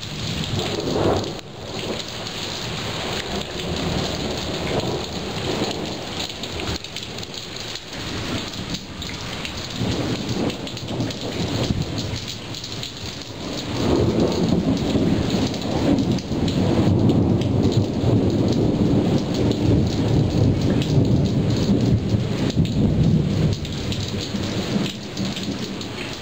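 Thunderstorm: rain falls steadily throughout, and a long low rumble of thunder swells about halfway through, stays loud for some ten seconds, then eases off.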